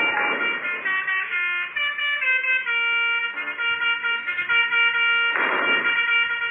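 Telolet basuri melody horn on a motorcycle playing a tune of held notes that step from pitch to pitch. A short hissing swish sounds at the start and again about five and a half seconds in.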